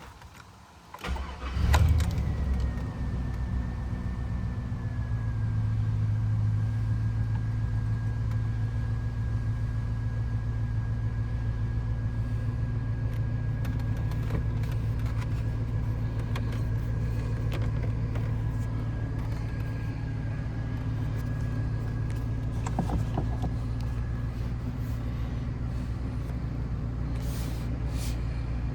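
Car engine cold-started: a brief crank about a second in, catching almost at once with a quick flare in revs, then settling into a steady idle. A faint high whine sits over the idle, easing slightly down in pitch before dying away near the end.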